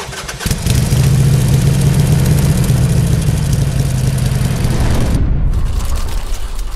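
A motorcycle engine running loud and steady with a strong low note, starting about half a second in. About five seconds in the sound drops away to a quieter low tail.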